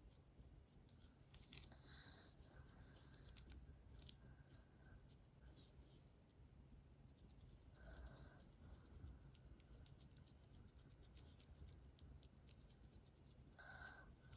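Press-on fingernails scratching a dandruffy scalp through the hair: a quiet run of fine, quick scratching strokes that grows denser in the second half.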